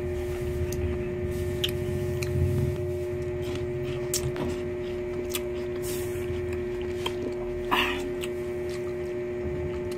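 A person chewing crisp, juicy camias (bilimbi) fruit, with scattered small wet clicks and crunches and one louder short burst about three-quarters of the way through, over a steady electrical hum.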